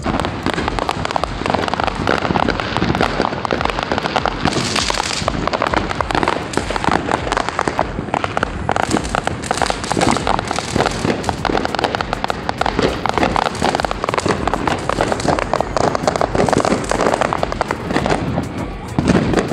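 Fireworks going off continuously: a dense, unbroken run of crackling and popping, with aerial shells bursting overhead.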